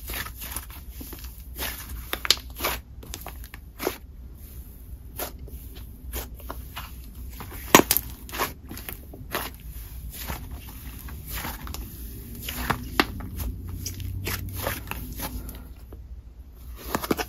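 Soft icy, snow-based slime squeezed, stretched and folded between the hands, giving irregular crackling pops and sizzles. The handling pauses briefly near the end.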